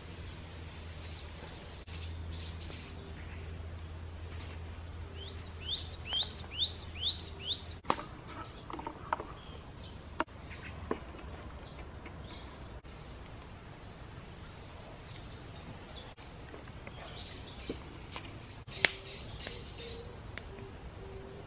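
Wild birds chirping and singing in woodland, with a quick run of about six rising whistled notes around six seconds in. A few sharp clicks and knocks of metal camp cookware cut in, the loudest near the end.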